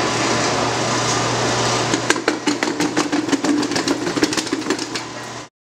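Honey extracting machinery running steadily with a low hum. About two seconds in, a rapid, uneven clatter of knocks starts over it, several a second, then all sound cuts off suddenly near the end.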